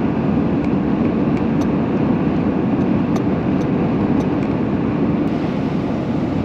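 Steady road and engine noise heard inside a van's cab while driving, with a few faint, light ticks.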